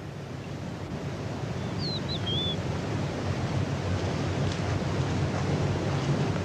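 Steady rushing wind noise in open country, with a short warbling bird call about two seconds in.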